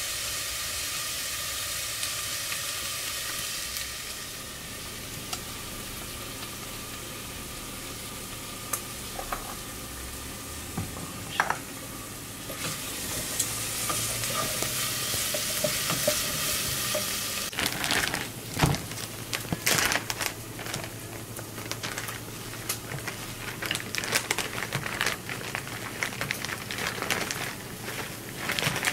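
Steady hiss from a lit gas stove burner heating a pot. About two-thirds of the way in, irregular clicks and knocks of kitchen handling join it, and near the end a plastic zip bag crinkles as it is opened.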